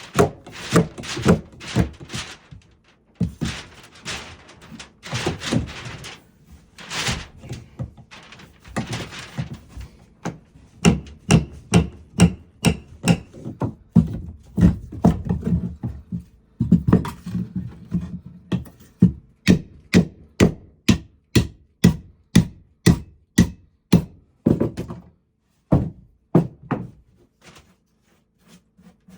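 A hammer driving nails into wooden framing: a long series of blows, loosely spaced at first and then a steady run of about two a second, stopping a few seconds before the end.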